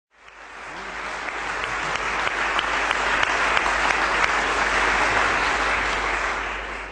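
Audience applauding, a dense clapping that swells up over the first second and eases off near the end.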